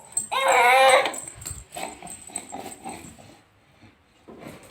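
A dog gives one drawn-out cry with a wavering pitch, lasting under a second, followed by fainter scattered sounds.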